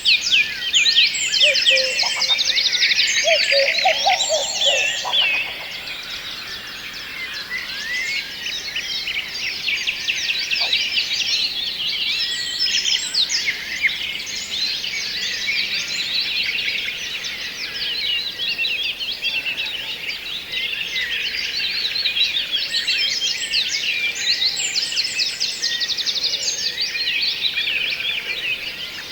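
A dense chorus of many small birds chirping and singing over one another, busiest and loudest in the first five seconds. A lower-pitched call sounds briefly about three to five seconds in.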